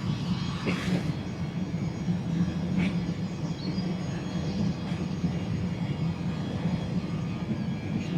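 Steady low mechanical rumble, like an engine or machinery running, with a few faint brief high sounds about a second and three seconds in.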